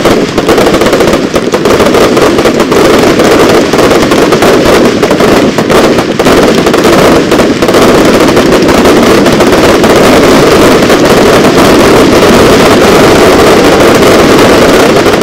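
Fireworks salute finale: an unbroken, very loud barrage of aerial salutes, the bangs following so fast that they run together into one continuous rattle.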